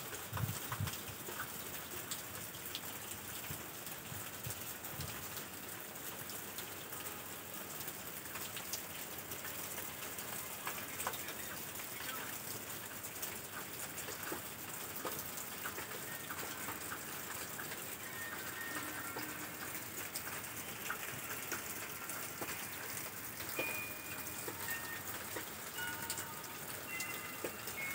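Steady rain falling on railway track, a constant hiss scattered with the ticks of individual drops. A few short high chirps come in over the last ten seconds.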